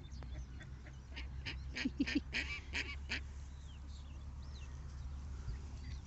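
Waterfowl calling: a quick run of short, harsh quacking or honking calls about one to three seconds in, followed by faint chirps of small birds.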